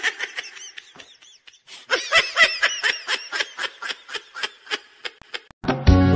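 A long run of quick, high-pitched laughs, louder from about two seconds in; music starts near the end.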